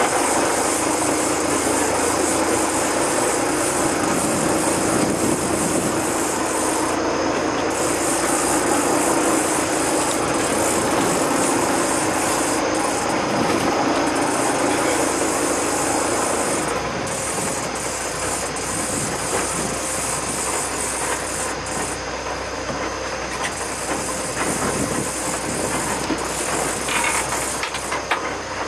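Steady rushing noise of a sport-fishing boat under way: engine running, with water along the hull and wind on the microphone. The hum eases a little about halfway through.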